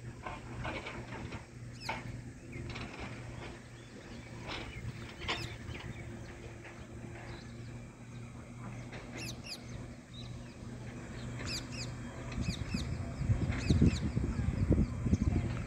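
Birds chirping in short, quick calls over a steady low hum. In the last few seconds a loud, irregular low rumbling comes in and becomes the loudest sound.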